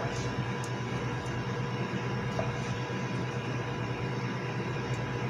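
Steady machine hum and hiss of kitchen equipment, with a few faint taps of a knife on a plastic cutting board as cherry tomatoes are halved.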